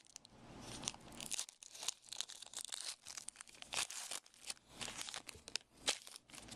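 A trading card pack wrapper being torn open and crinkled by hand, a run of crackling, rustling tears.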